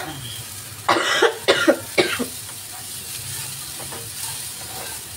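A person coughs several times in quick succession about a second in. Underneath and after, chopped onion and shredded chicken sizzle steadily in hot oil in a frying pan as a spatula stirs them.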